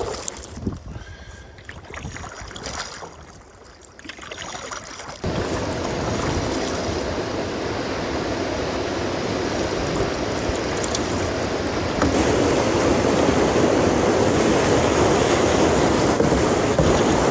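Quieter water for about the first five seconds, then suddenly the loud, steady rush of whitewater rapids close beside a canoe, growing louder again about twelve seconds in.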